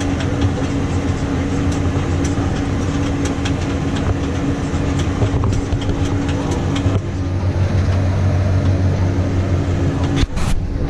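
Tractor engine running steadily while pulling a working Claas Uniwrap baler along a windrow of hay, with a constant hum from the baler's driveline and light regular clicks. The sound changes about seven seconds in, and one tone drops out shortly before it cuts off.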